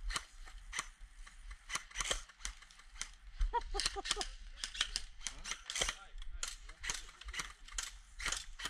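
Airsoft rifles firing single shots, a sharp snap every half second or so at an uneven pace.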